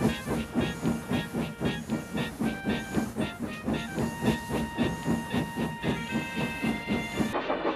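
Steam locomotive chuffing at a steady beat of about three puffs a second, each puff with a rush of hissing steam.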